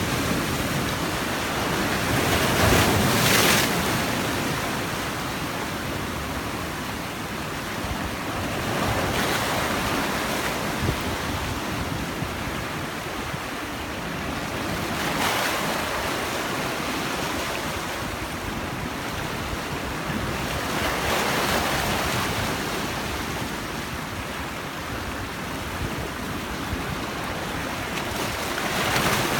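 Sea waves breaking on the shore: a steady wash of surf that swells with a breaking wave about every six seconds.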